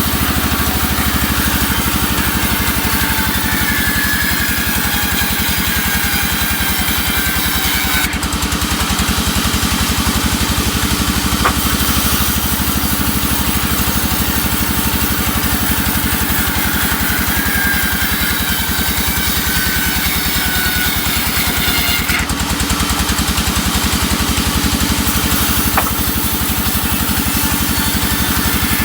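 Sawmill engine running steadily. A brighter hiss comes in twice, for a few seconds each time, along with a faint falling whine.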